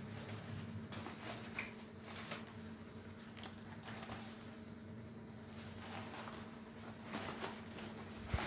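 Soft, irregular rustling of a nylon duffel bag being unfolded and handled over a crinkly plastic mailer bag.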